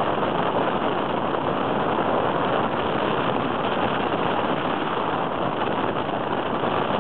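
Small aircraft in flight: steady, loud engine and rushing-air noise without a clear pitch, unchanging throughout.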